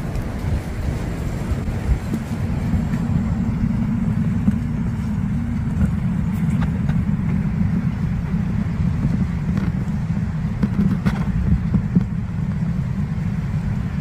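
Wind rumbling steadily and low on the microphone, with a few faint clicks.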